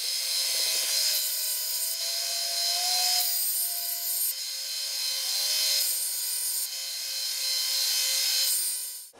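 Narrow vertical belt sander running as small steel tabs are pressed against the belt and ground down. The grinding grows louder in several spells as the part is pushed into the belt, and it stops abruptly near the end.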